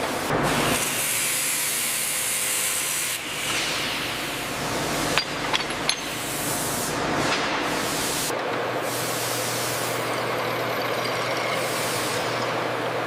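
Factory machine noise: a steady hiss over a low machine hum that changes every few seconds, with a few sharp metallic clicks about five to six seconds in.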